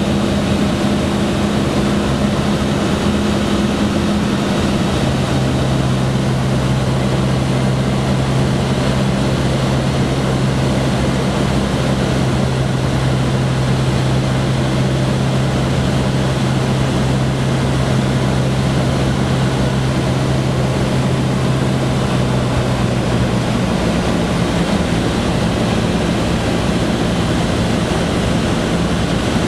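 Cessna 152's four-cylinder Lycoming engine and propeller droning steadily inside the cabin on approach to land. The engine note drops to a lower pitch about five seconds in, as power comes back, and steps up a little again near the end.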